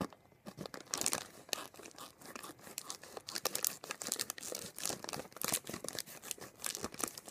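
A foil snack bag of chips crinkling and crackling as it is cut open across the top with scissors: a dense run of sharp, irregular crackles.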